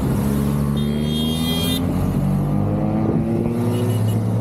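Motorcycles riding past in a continuous stream, engine notes climbing slowly in pitch as they accelerate. A brief high-pitched tone sounds about a second in.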